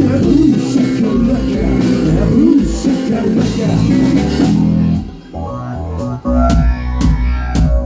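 Live rock band with electric guitar, bass and drums playing the end of a song: the full band drops out suddenly about four and a half seconds in, leaving a run of separate drum and cymbal hits over held guitar and bass notes as the song closes.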